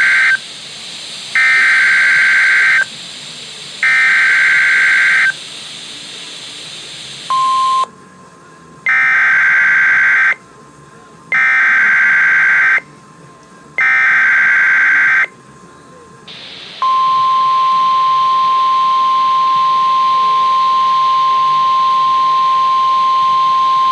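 Emergency Alert System SAME header tones: three loud, harsh warbling data bursts about a second apart, repeated as a second set of three. A steady single-pitched NOAA Weather Radio warning alarm tone near 1 kHz briefly sounds between the two sets, then comes on and holds for the last third.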